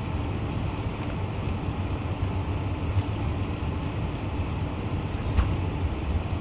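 Cabin noise inside an Airbus A380 rolling along the ground at the start of its takeoff: the engines and wheels make a steady deep rumble. Two brief thumps come about three seconds and five seconds in.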